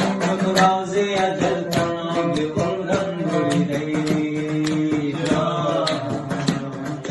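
Afghan folk song: a voice sings long held, wavering notes over a dambura strummed in a steady rhythm.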